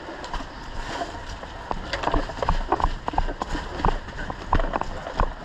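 Running footsteps with knocking and rattling of carried kit, uneven thumps and clicks.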